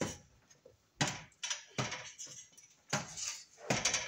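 A series of short clinks and rattles of small metal hardware and fixture parts being handled, coming every half second to second.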